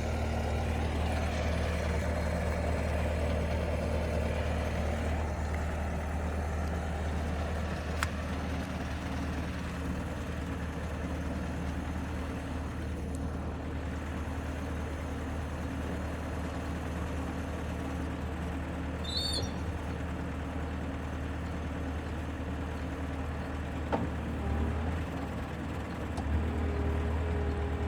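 Diesel engine of a Bobcat T595 tracked skid steer running at a steady speed with an even low hum, a single click about a third of the way in.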